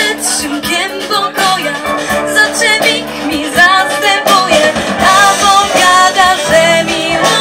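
A girls' choir singing with a live band of guitars, bass guitar, drums and keyboard.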